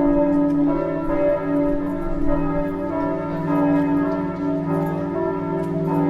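Several church bells pealing together, each new strike overlapping the ring of the ones before so the tones run on without a break.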